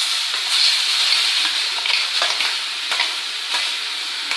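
Gingelly (sesame) oil tempering sizzling steadily in a pan as a wet ground amla-chilli paste is scraped into it, with short scrapes and light knocks of a wooden spatula against a steel mixer jar.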